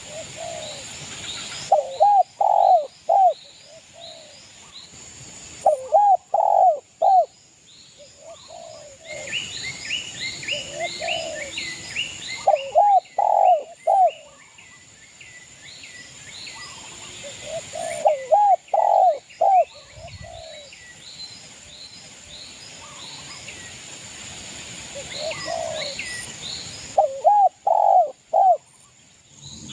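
Spotted dove (derkuku) cooing: groups of three or four low coos, repeated every few seconds, in the vigorous calling keepers call gacor. Small birds chirp rapidly and higher in pitch between the phrases.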